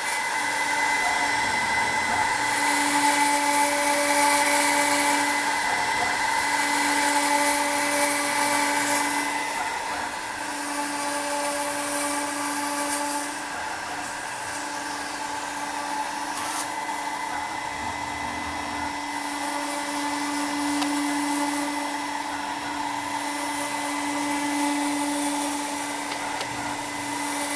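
DIY CNC mill's spindle running steadily while the cutter mills MDF, with a lower hum that starts and stops every few seconds and cutting hiss that swells and fades.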